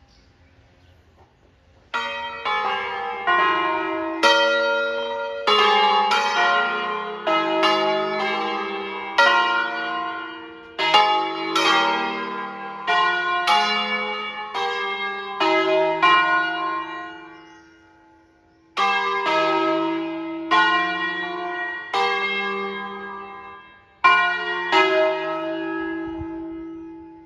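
Five motor-swung church bells, the largest in E-flat, cast by Crespi in 1853, ringing a short solemn 'concerto', a set melodic sequence of clapper strikes about two a second with long ringing decays. It starts about two seconds in, lulls briefly about two-thirds of the way through, then resumes and dies away near the end.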